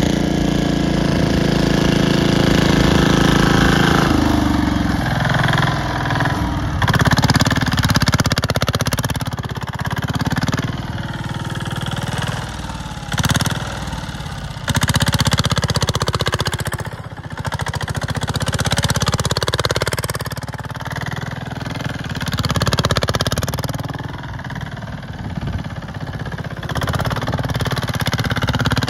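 BCS 622 two-wheel mower's Ruggerini RF 90 single-cylinder diesel engine running under way. Its note holds steady at first, drops about four seconds in, then rises and falls again and again as the machine is driven and slid around.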